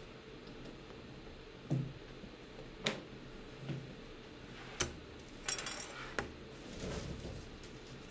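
Prints, paper and small objects handled on a worktable: a scattering of light knocks and clinks a second or so apart, with a brief rustle a little past the middle.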